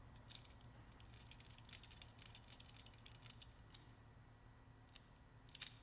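Faint, light clicks and ticks of small metal hand tools being handled, a quick run of them between about one and four seconds in and one more near the end.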